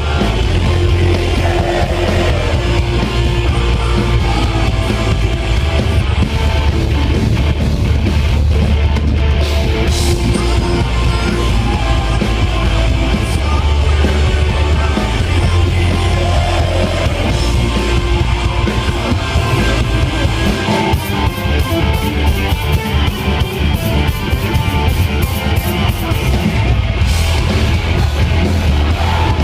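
Hard rock power trio playing loud: distorted electric guitar, bass guitar and drums, with heavy low bass. In the second half the drums play a run of rapid hits.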